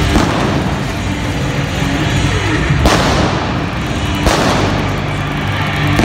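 Arena pyrotechnics over loud music: a dense rush of fireworks fountains and flame-cannon bursts with booms. New bursts start suddenly about three and four seconds in.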